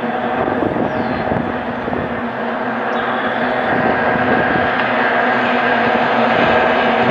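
Racing outboard engine running at high revs with a steady, buzzing pitch, growing gradually louder.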